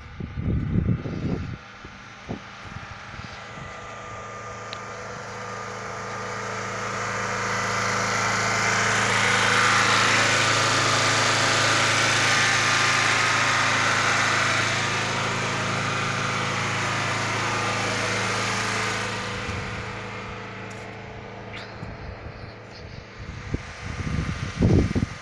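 A steady engine hum with an even, unchanging pitch, growing louder over about ten seconds, holding, then fading away. Low thumps sound near the start and again near the end.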